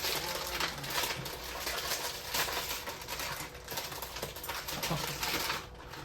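Blind-box packaging being opened by hand: cardboard and plastic rustling and crinkling, with many small clicks and taps.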